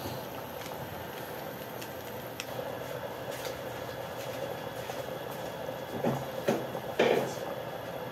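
Pot of water boiling on an induction cooker: a steady bubbling hum, with a few short handling noises about six and seven seconds in.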